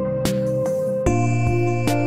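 Background music: held chords with a light, regular beat, changing to a new chord about a second in.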